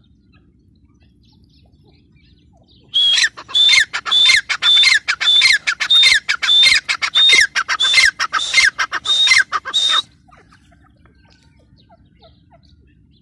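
Grey francolin calling: a run of about a dozen loud, harsh notes, roughly two a second, each sliding down in pitch, starting about three seconds in and breaking off abruptly some seven seconds later.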